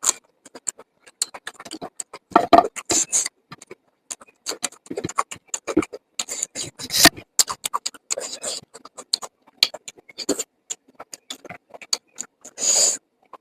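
Close-miked mouth sounds of eating: chewing and lip smacking as a string of irregular wet clicks, with a few louder, longer bursts about two and a half to three seconds in and again near the end.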